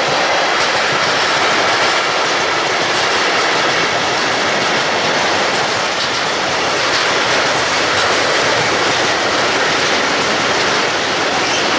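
Freight train of tank wagons rolling past at speed, its steel wheels running steadily over the rails.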